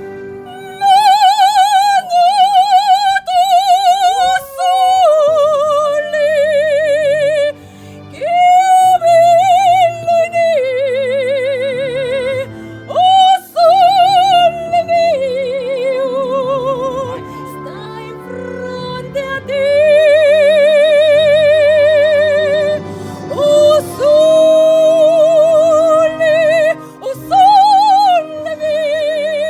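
Operatic soprano singing an aria, holding long high notes with a wide vibrato, over an instrumental accompaniment. The voice breaks off briefly several times between phrases while the accompaniment carries on.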